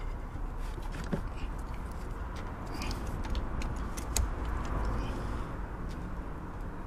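Scattered light clicks and plastic rattles as fuel-line quick-connectors are handled and pushed onto a diesel fuel filter. A steady low rumble runs underneath.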